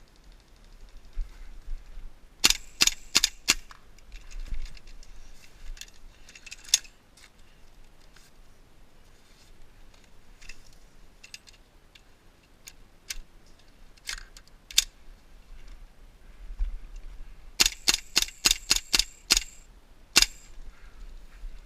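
Airsoft guns firing: a quick string of about five sharp shots a couple of seconds in, scattered single shots through the middle, then a faster string of about eight shots near the end and one more after it.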